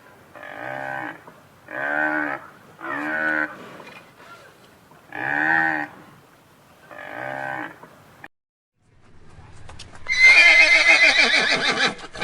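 Five short, separate farm-animal calls, each under a second, with a pitch that rises and falls, then after a short break a louder, longer horse whinny with a trembling pitch near the end.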